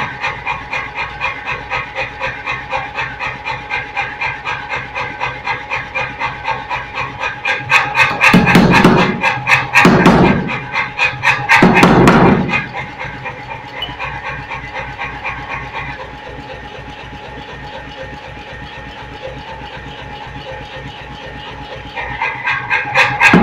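Pneumatic forging hammer running in a steady rapid beat of strokes as it forges red-hot round steel bar into an elliptical ball in a die. Louder spells of heavy blows come about a third of the way in and again near the end, with a quieter stretch in between.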